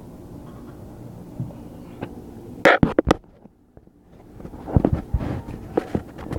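A hand-held phone is being moved and covered close to its microphone. There is a low rumbling rub, then a quick cluster of sharp knocks about three seconds in and a brief drop to near silence, followed by more knocks and rubbing.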